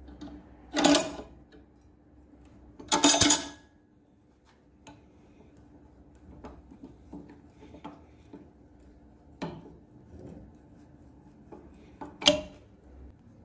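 Rusty steel pipe wrench clamped in a bench vise, clanking and rattling metal on metal as it is worked by hand: two loud ringing clanks in the first few seconds, light clicks and taps in between, and a sharp clank near the end, over a faint steady hum.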